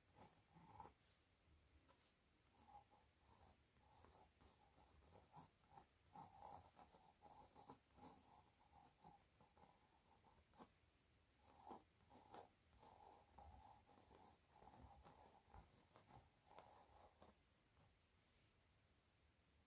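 Faint scratching of a pencil sketching on stretched canvas, in many short strokes that stop near the end.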